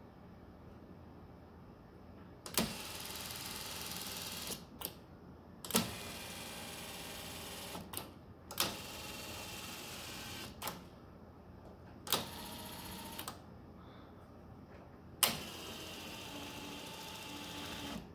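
1966 Chrysler 300 power seat's electric motor running in five short runs of one to two seconds each, every run starting and ending with a click as the seat track moves, working properly.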